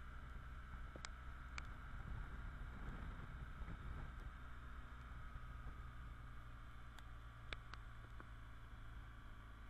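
Faint, muffled drone of a BMW R1200GS flat-twin engine and road noise while riding, with a few sharp ticks about a second in and again near the end.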